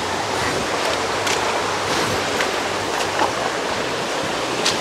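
Shallow river water rushing steadily over rocks, with a few brief splashes of boots wading through it.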